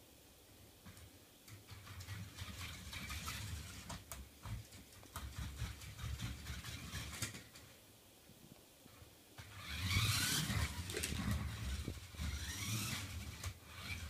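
Small electric drive motors of a toy RC car whining in stop-start bursts as it drives and turns on a hard floor, the pitch rising and falling with each burst. The choppy on-off rhythm comes from the motors being switched by single arrow-key presses over SSH. The loudest bursts come about ten seconds in and again a couple of seconds later.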